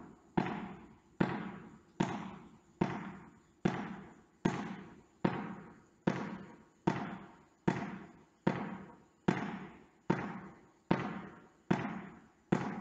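Small ball bounced by hand on a sports hall floor and caught, at a steady rate of about one bounce every 0.8 s, sixteen in all. Each hit rings out in the large hall.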